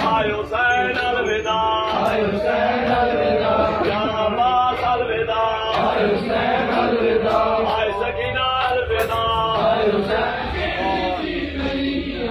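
A man's voice chanting in a sung, melodic recitation, holding long wavering notes.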